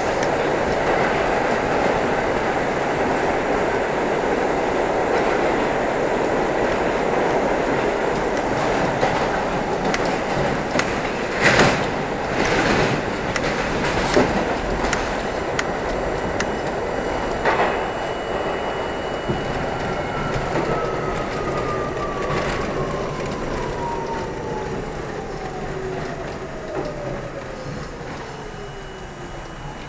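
R32 subway train running at speed through a tunnel, a steady rumble with a few sharp clacks of the wheels over rail joints about twelve seconds in. In the last ten seconds the train brakes, and a whine from its traction motors falls steadily in pitch while the rumble dies down.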